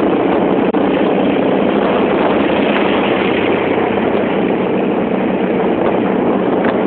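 Yamaha X1 motorcycle heard on board while riding: its engine running steadily under a constant rush of road and wind noise.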